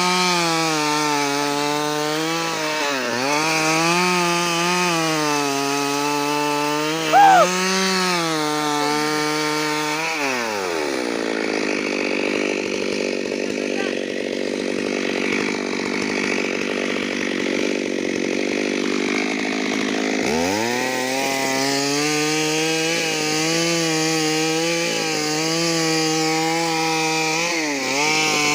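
Stihl MS 382 two-stroke chainsaw running at high revs with small dips. About ten seconds in its pitch drops sharply and stays low for about ten seconds, the engine loaded as the chain cuts through a wooden plank, then it revs back up. A brief sharp sound stands out about seven seconds in.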